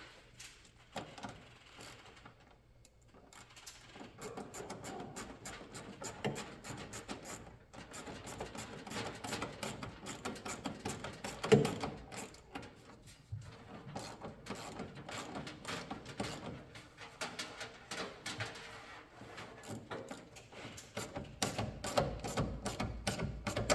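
Hands working a vehicle wiring harness into its fuse box: a busy run of irregular clicks and rustling of plastic connectors and wire loom, with one sharp knock about halfway through.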